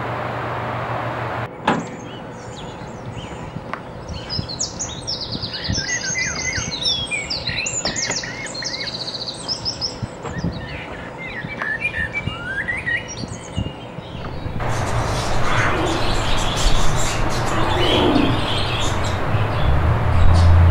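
Small birds chirping and trilling, many short quick calls over several seconds. A steady hum comes before them at the start, and louder mixed background noise follows after a break near the end.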